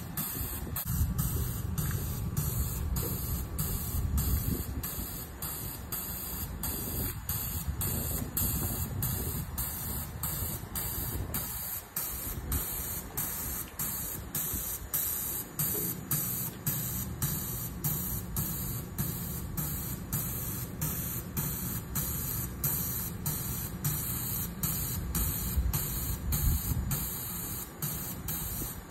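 Steady hiss with a low, uneven rumble from an electric commuter train standing at the platform with its onboard equipment running.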